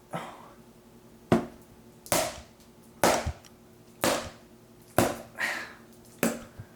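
Foley fight-sound hits: an object struck repeatedly, about nine sharp blows roughly one a second, each followed by a short noisy decay.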